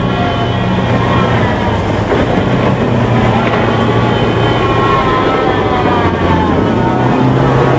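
CV90 tracked armoured vehicle driving: its engine runs steadily under a whining drivetrain tone that slowly rises and falls in pitch.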